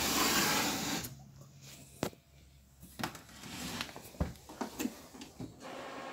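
Handling noise: a loud rubbing scrape lasting about a second, then several separate knocks and clicks as a hard case is touched and moved.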